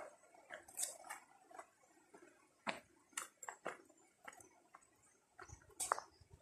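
Faint, irregular footsteps crunching on a stony dirt trail, with a few louder scrapes.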